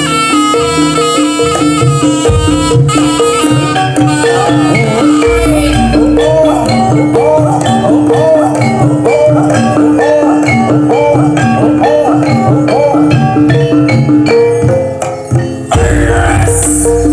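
Javanese gamelan music: metallophones and gongs ringing steady repeated notes over drums, with a wavering melody through the middle. The music dips briefly about fifteen seconds in, then comes back fuller and heavier.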